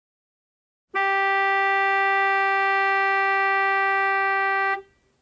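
Vehicle horn sounding one long, steady blast on a single pitch for nearly four seconds, starting about a second in and cutting off sharply.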